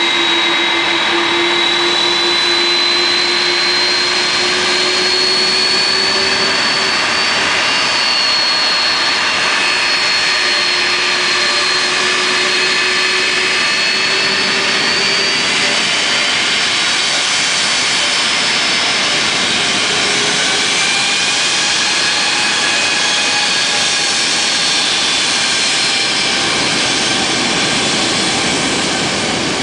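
Airbus A330's twin turbofan engines running at taxi power as the airliner turns, a steady loud rush with a high whine and a lower hum that drift slowly upward in pitch early on and then hold.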